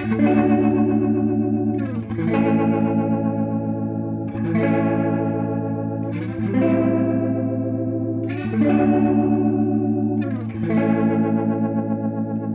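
Electric guitar chords played through a Strymon Lex rotary speaker simulator pedal, giving a swirling Leslie-style sound. A new chord comes about every two seconds and rings out, over a steady low note held underneath.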